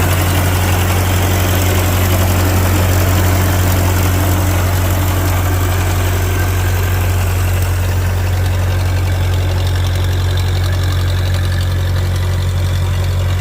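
Old Ferguson tractor engine idling steadily, a constant low hum.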